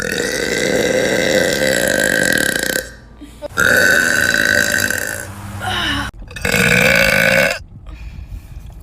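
A woman belching three long, loud, deep burps in a row, the first lasting close to three seconds and the last the shortest.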